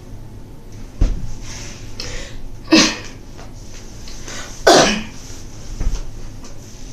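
A person's two short, sharp bursts of breath, like coughs or sneezes, about two seconds apart, after a thump about a second in.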